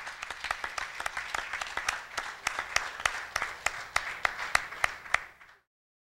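Audience applauding: many hands clapping, with a few louder single claps standing out in the second half. It cuts off suddenly about five and a half seconds in.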